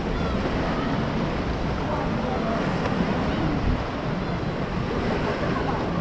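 Sea waves washing in steadily, with wind noise on the microphone.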